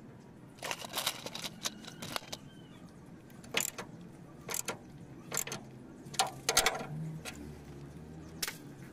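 Metal tools and fittings clinking in irregular sharp clicks while a handbrake cable is fitted and adjusted at the parking-brake drum.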